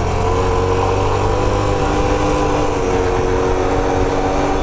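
Honda CT110 postie bike's 105cc single-cylinder four-stroke engine running steadily while the bike is ridden, its note drifting slightly lower, with wind rushing over the microphone.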